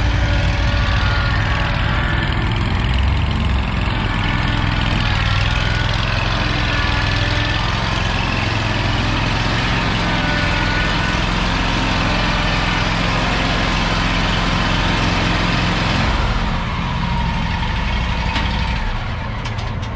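Bob-Cat Pro Cat 6000 zero-turn mower's engine running steadily as the mower is driven up into an enclosed trailer, turning quieter for the last few seconds.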